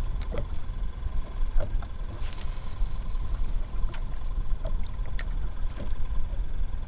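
Wind rumbling on the microphone while small waves lap and slap against a kayak's hull, with scattered little splashes and a brief hiss of water a little over two seconds in.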